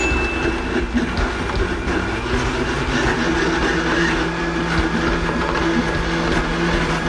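High-powered kitchen blender running, its blades chopping cilantro, green chili and lime juice into a chutney; its note shifts about three seconds in.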